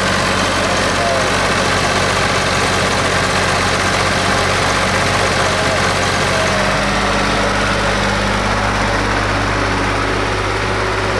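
Old tractor engine running steadily under load as the tractor pulls through deep mud. Its note rises slightly about six and a half seconds in.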